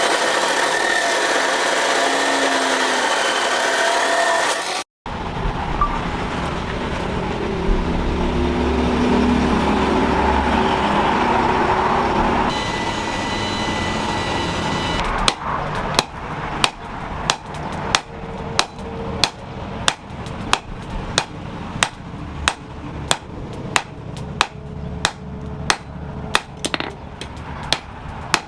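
A hand hammer striking metal at a steady pace, about three blows every two seconds, through the second half. The first half holds steady rough noise and then a low rumble.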